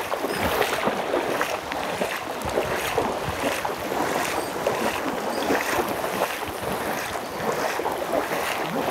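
Footsteps wading through shallow floodwater in rubber boots, with a regular slosh and splash at each stride.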